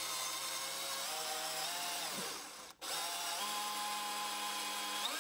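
Drill running in reverse, turning a Speed Out extractor bit into the stripped head of a screw: a steady motor whine that winds down and stops briefly about halfway through, then runs again.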